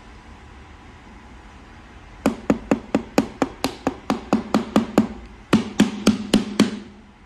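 A hand knocking rapidly on the glue-coated face of a GOB LED cube display, about four knocks a second. The knocks start about two seconds in, break off briefly a little past the middle, then go on for about a second more.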